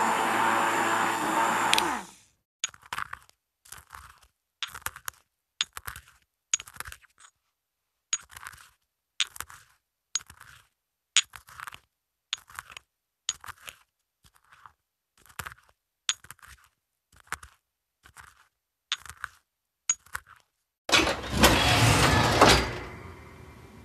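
Mortar and pestle grinding spices in short strokes, about one a second. Before it, an electric mixer runs and cuts off; near the end, a large oven door opens.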